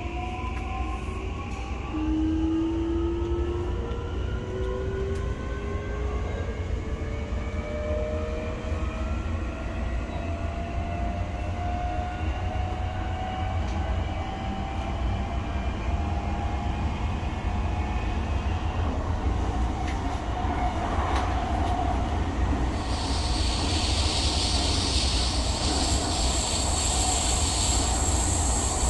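Odakyu 3000-series electric train's traction motors and inverter whining as it accelerates, with several tones rising together steadily in pitch over a low running rumble. Near the end a higher rushing hiss of the train at speed joins in.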